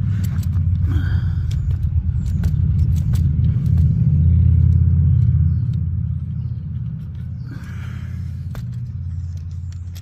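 A low, steady rumble that swells about halfway through and then eases off, with scattered sharp clicks over it.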